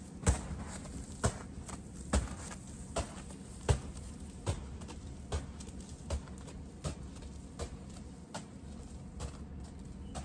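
Footsteps walking through snow, about one step every 0.8 seconds, growing fainter over the stretch.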